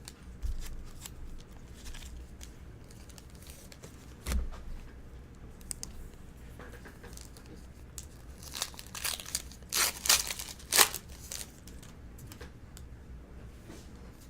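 Foil wrapper of a 2013 Bowman Draft baseball card pack being torn open and crinkled, with cards shuffled in the hand. A single knock comes about four seconds in, and a louder run of tearing and crinkling about nine to eleven seconds in.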